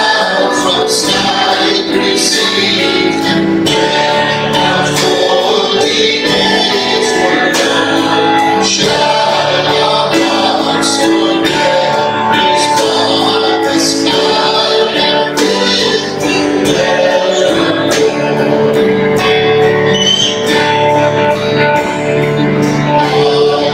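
A church congregation singing a hymn to guitar accompaniment.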